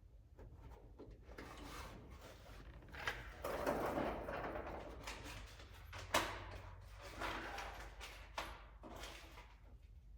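Hand work on fender parts: irregular scraping and rustling with scattered clicks and knocks as nuts and washers are worked onto the rock guard's studs behind the fender. It is loudest about three to four seconds in, with one sharp click about six seconds in.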